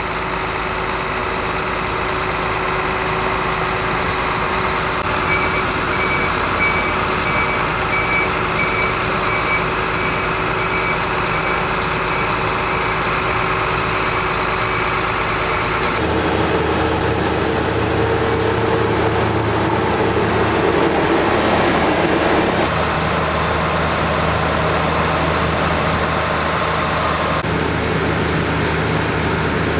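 Diesel engines of combine harvesters and tractors running steadily during wheat harvesting, with a faint intermittent high beeping in the first half. The sound changes abruptly twice, about halfway through and again about two-thirds of the way in.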